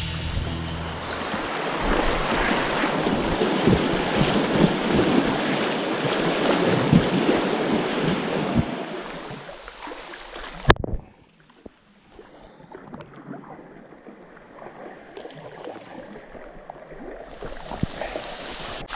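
Kayak paddle strokes splashing the water beside an inflatable kayak, with wind rumbling on the microphone. A little past halfway a sharp click cuts it off, and the paddling goes on much quieter.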